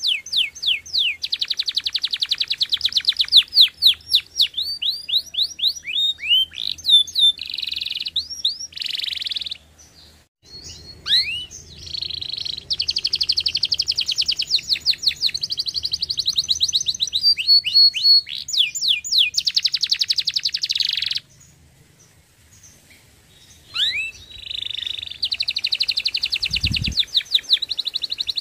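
Domestic canary singing: long phrases of fast trills and rapidly repeated sweeping chirps, broken by two short pauses. A brief low thump near the end.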